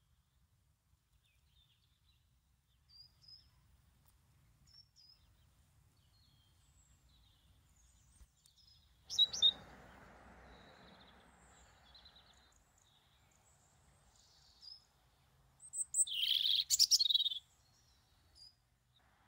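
Small garden songbirds calling: faint, short high chirps throughout, two sharp loud calls about nine seconds in, and a louder burst of calls lasting about a second and a half near the end.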